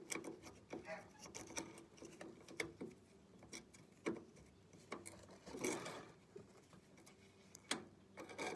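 Faint, irregular metal clicks, taps and scraping as hands and a tool work at the brake bolt and spring of a Craftsman riding mower, with a longer scrape a little past the middle.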